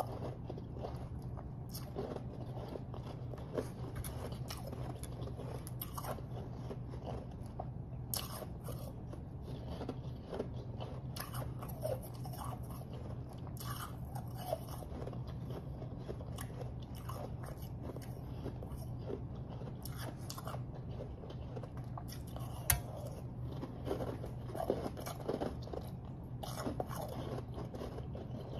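Close-miked biting and chewing of refrozen powdery snow ice: irregular soft crunches, several a second at times, over a steady low hum.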